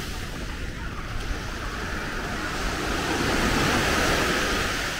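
Small waves breaking and washing up a sandy beach, a steady rush that swells to its loudest about three to four seconds in, with some wind rumble on the microphone.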